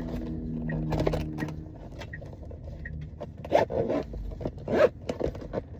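Short rasping, zipper-like scrapes from product packaging being handled and opened by hand, in a few quick strokes.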